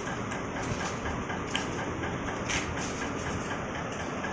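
Steady mechanical running noise with a faint, regular ticking, a few ticks a second, and a couple of light clicks.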